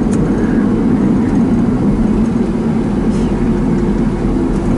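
Engine and road noise inside the cab of a moving small truck: a steady low drone with no change in pace.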